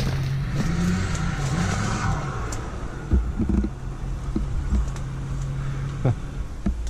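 An engine running steadily, its pitch rising and falling briefly about a second in, with a few short knocks near the middle and end.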